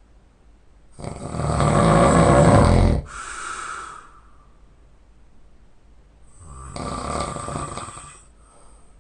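A man snoring loudly in his sleep: a long, loud rattling snore about a second in, trailing off into a softer breath, then a second, quieter snore near the end.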